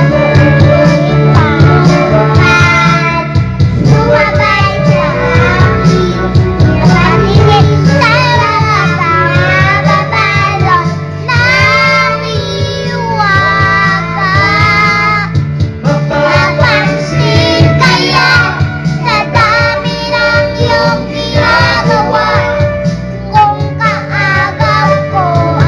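A young boy singing into a corded microphone over backing music with guitar.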